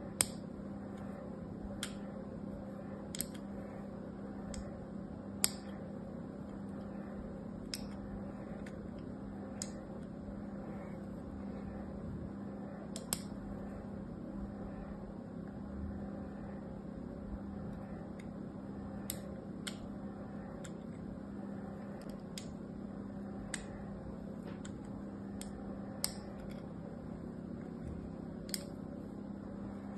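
The point of a blade scoring lines into a bar of dry soap, giving a short, crisp tick as each stroke cuts through, about eighteen in all at uneven gaps of one to three seconds. A steady low hum runs underneath.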